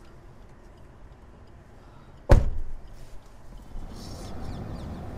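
A car door slams shut once, a little over two seconds in, followed by the low steady rumble of the car running.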